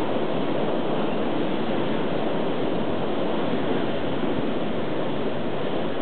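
Blizzard wind blowing hard and steady across open ground, a constant rushing hiss with no gusts or breaks.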